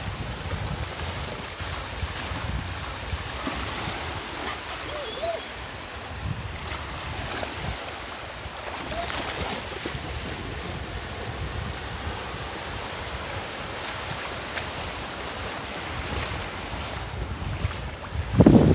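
Small waves breaking and washing in the shallows, with wind buffeting the microphone and the splashing of dogs bounding through the water. A brief louder burst comes near the end.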